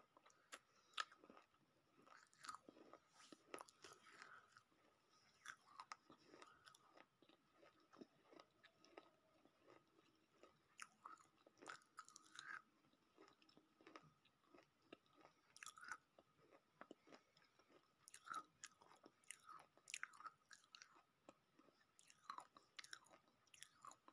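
Quiet close-up chewing of dry roasted multani mitti (fuller's earth clay): irregular small crunches and mouth clicks, a few every second.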